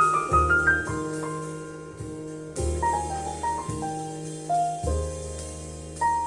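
Jazz ballad piano played back through KEF Q300 hi-fi loudspeakers. A melody of single notes moves over held chords, and a new low bass note and chord is struck about every two and a half seconds.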